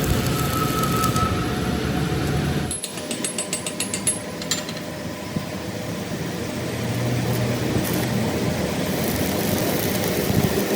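Workshop machinery and power-tool noise. It changes abruptly a little under three seconds in, with a short run of rapid, even ticking just after.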